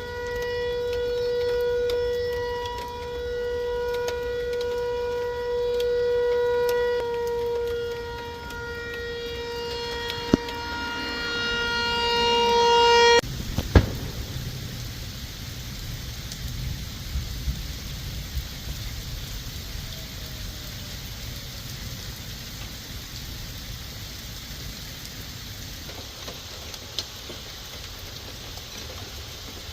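Outdoor tornado warning siren sounding a steady tone, swelling and fading every few seconds, then cutting off suddenly about 13 seconds in. A sharp loud pop follows a moment later, and after it rain falls steadily with scattered drips.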